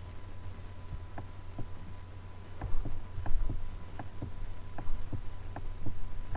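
Steady low electrical hum with a faint high steady tone, broken by irregular soft clicks and taps, about a dozen of them, most of them from about two and a half seconds in.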